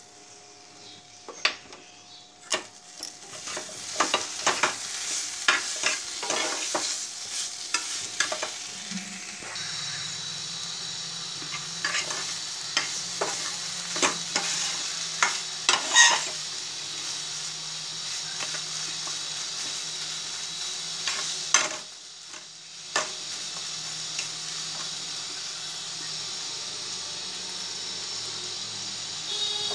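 A metal spoon stirring and scraping mashed banana stem in a nonstick pot, with irregular clicks and knocks against the pan, densest in the first half. Under it is a steady sizzle of the mash frying in the pot.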